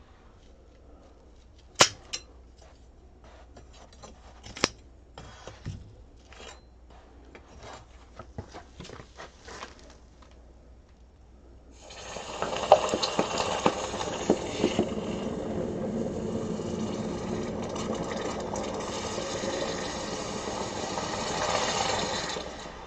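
A freshly cast aluminum hammer head is quenched in a bucket of water: from about twelve seconds in the hot metal sizzles and boils loudly and steadily for some ten seconds, then dies down. Before that come scattered sharp clinks and scrapes of the tongs against the casting and the casting sand.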